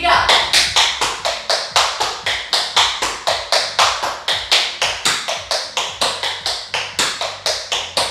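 Tap shoes' metal taps striking a hard floor in a fast, even tap-dance rhythm, about five taps a second.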